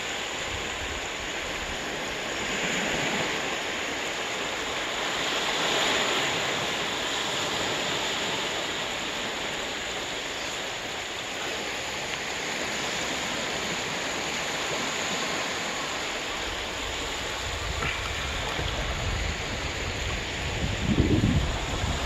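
Small sea waves breaking and washing up a sandy beach: a steady surf hiss that swells and eases as each wave comes in. Low rumbling gusts rise near the end.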